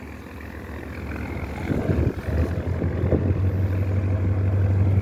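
Boat engine running with a steady low hum that grows louder about three seconds in, over a noisy haze.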